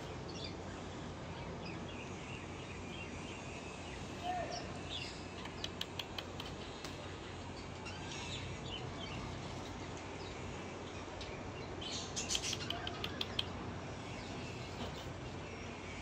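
Blue-crowned hanging parrot chirping: short, thin, high-pitched chirps, coming in quick runs about six seconds in and again, louder, about twelve seconds in, over a steady background hiss.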